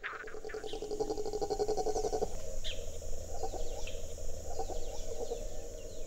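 Frogs calling in a fast pulsing trill, strongest for the first two seconds and then fading, over a steady high insect buzz and scattered short bird chirps.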